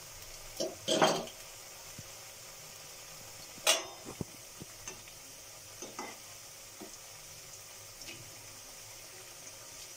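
Potato slices coated in water chestnut flour deep-frying in hot mustard oil over a high gas flame, a steady sizzle. Four or five short clatters of a slotted spatula against the kadhai stand out, the loudest about a second in and just before four seconds.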